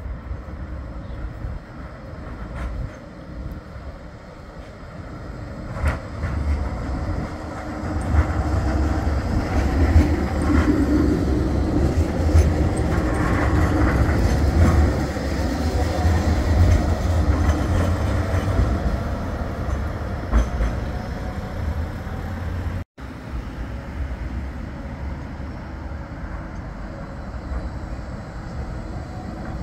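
Bombardier Flexity 2 tram running on street track: a rolling rumble and wheel-on-rail noise that builds as it nears, is loudest as it passes close by from about 8 to 19 seconds in, then fades. After a sudden cut near the end, another tram is heard approaching more quietly.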